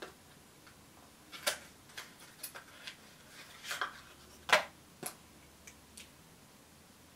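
A lipstick and its packaging being handled: a scattering of small, irregular clicks and taps, some with a short rustle, the sharpest about four and a half seconds in.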